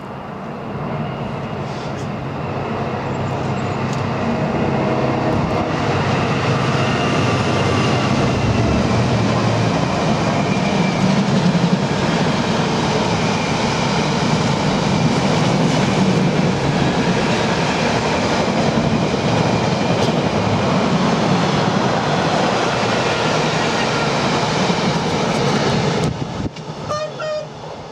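Class 66 diesel locomotive passing with an intermodal container freight train: the engine's low drone in the first seconds, then the steady rumble and clatter of the container wagons over the rails, which fades away sharply near the end.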